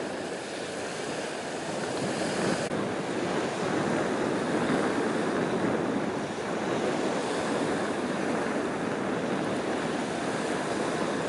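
Choppy water washing and splashing along the shore, with wind blowing across the microphone. The sound changes abruptly and gets a little louder a few seconds in.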